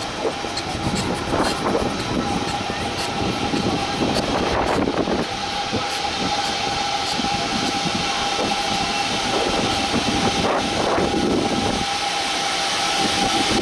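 Free-fall drop tower's ride car being hauled up the tower: a steady mechanical running noise, joined about a third of the way in by a steady whine that holds to the end.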